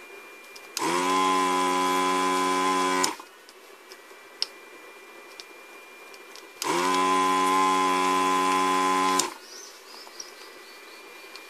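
Electric desoldering gun's vacuum pump switched on twice, each time running for about two and a half seconds with a steady buzzing hum, as it sucks molten solder off the joints of an inverter circuit board.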